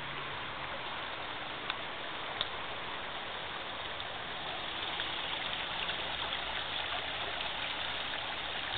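Shallow stream running over rocks, a steady burbling rush of water.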